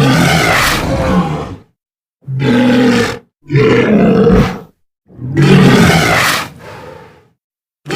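Creature sound effects for an alien leopard seal: four rough, low growling roars of one to two seconds each, separated by short gaps. The last roar trails off quieter, and another starts right at the end.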